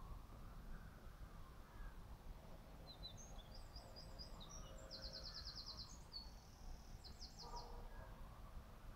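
A small songbird singing a high, fast song of varied notes with rapid trills, starting about three seconds in and stopping near the end, over a faint low outdoor rumble.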